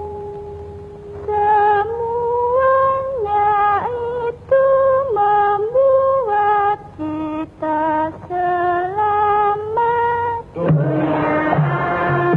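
A woman singing a slow melody alone, holding a long note at first, then moving up and down in short phrases. About ten and a half seconds in, a gamelan ensemble with drum strokes comes in under her.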